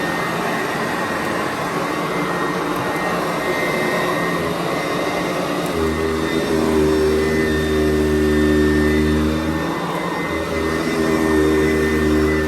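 Sanitaire SC889B upright vacuum cleaner running steadily with a whining motor. A deeper hum comes in about six seconds in, drops out briefly near ten seconds, and returns.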